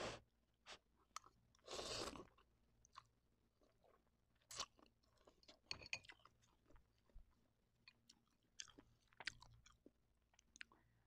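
Faint close-up eating sounds of Indomie instant noodles: chewing and slurping in short, separate bursts and clicks, with a longer noisy slurp about two seconds in.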